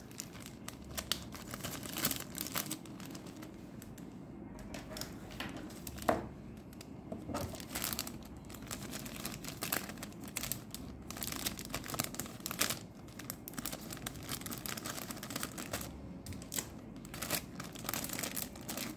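Clear cellophane bag crinkling and crackling unevenly as it is handled and pens are slipped into it.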